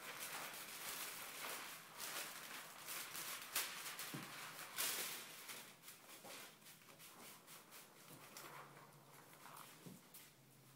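Thin plastic window film crinkling and crackling as its two layers are peeled apart and handled, thickest in the first half, with a couple of short hisses from a trigger spray bottle misting water onto the film.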